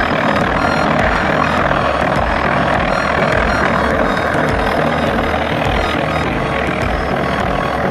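Chain-arm stone-cutting machine (quarry chain saw) running steadily as its cutting chain works into the rock.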